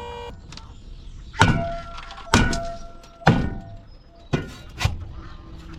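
Sharp metallic clangs, about one a second, several ringing on after the hit, from the steel body of a dump trailer being struck or banged as it struggles to shed its load of clay fill dirt. A steady hum stops just after the start.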